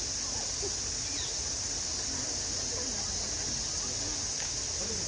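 Steady, unbroken high buzzing drone of a summer cicada chorus, with faint voices of people talking underneath.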